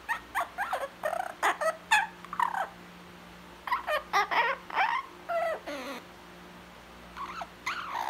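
Blue-fronted amazon parrot vocalizing: a run of short squeaky calls that glide up and down in pitch, coming in three bursts with short pauses between them.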